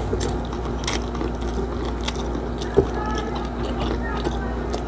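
Close-miked chewing and mouth sounds, with small clicks and taps from fingers picking rice and fried milkfish off a wooden board. One sharper tap comes near three seconds in, over a steady low hum.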